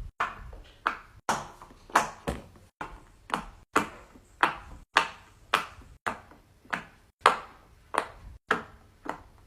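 Silicone pop-it fidget toys clicking: a steady run of sharp pops or taps, about two a second, each ringing out briefly.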